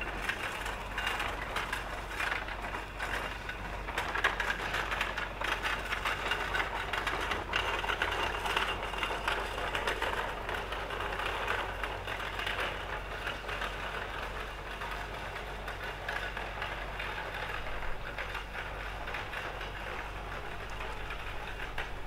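Steam locomotive standing in the station with steam rising from it: a steady hiss of steam with a dense clatter of small clicks, a little louder in the first half.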